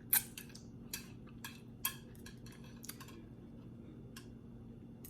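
Chopsticks clicking against each other and tapping as they are fumbled by someone still learning to hold them: a string of irregular light clicks, a couple louder than the rest.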